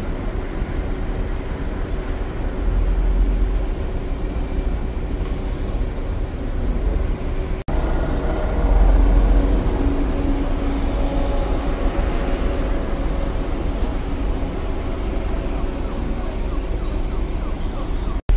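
Moving city tour bus heard from on board: steady traffic and engine noise under a low rumble. The sound drops out for an instant about a third of the way in.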